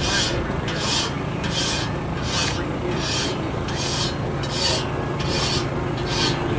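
A hand file rasping across the teeth of a sawmill blade in even strokes, about nine of them, one every three-quarters of a second, over a steady low engine hum.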